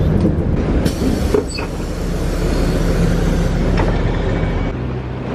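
Inside a moving city bus: a steady low rumble of engine and road noise, with a couple of sharp knocks and rattles about a second in.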